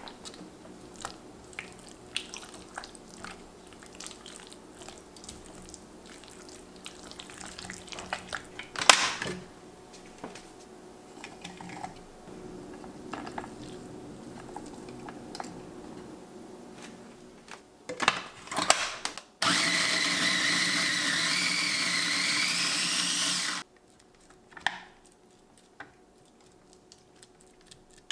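Mini food processor running for about four seconds, a steady whir with a slightly rising whine, chopping kalamata olives and feta into a spread. Before it, small clicks and a sharp knock as the ingredients go into its plastic bowl.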